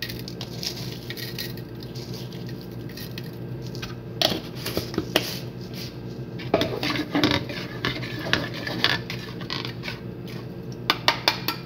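A spoon clinking and scraping against a plastic mixing bowl while a marinade is stirred, in scattered short knocks.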